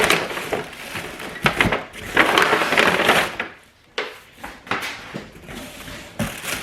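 Cardboard box and packing material rustling and scraping as parts are lifted out, in uneven bursts, the longest about two to three seconds in, with a few sharp knocks near the end.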